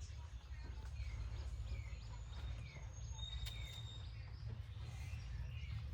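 Small birds chirping, a string of short falling chirps about two or three a second, over a steady low rumble. A single sharp click about three and a half seconds in.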